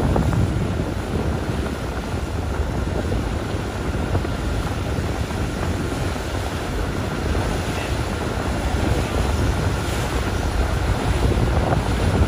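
Steady wind rumble on the microphone aboard a moving boat, over the rush of the boat through the water.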